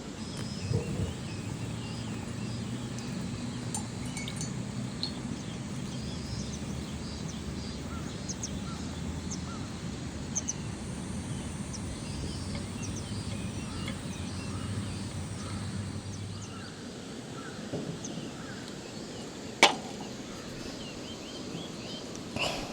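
Outdoor morning ambience with scattered short bird chirps over a low steady hum; the hum fades out after about sixteen seconds, and a single sharp click comes near the end.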